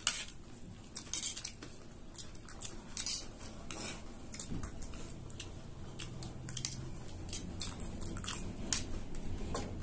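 Small metal spoons clinking and scraping against plates as chatpate is scooped up, a run of irregular sharp clicks.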